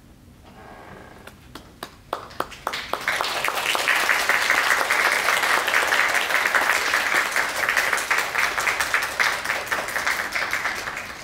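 Audience applauding the end of a piano performance: a few scattered claps about two seconds in quickly build into steady, full applause, which tails off at the very end.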